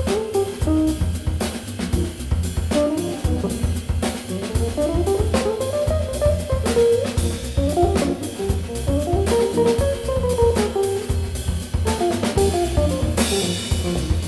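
Live instrumental jazz from a small band of drum kit, organ, electric guitar and tenor saxophone: the drums keep a busy groove over a pulsing bass line while a melodic line winds up and down, with a cymbal crash near the end.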